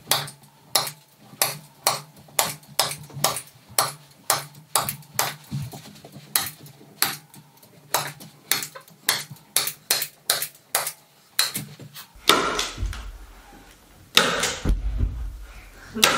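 Staple gun firing staples through carpet padding into the subfloor, a sharp click about twice a second, then rustling and a few thumps near the end.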